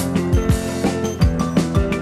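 Background music: a drum-kit beat with punchy kick drums under held chords.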